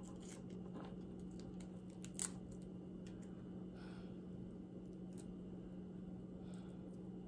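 Faint clicks and crackles of long acrylic fingernails picking at and pulling apart a garlic butter shrimp, with one sharp click about two seconds in, over a steady low hum.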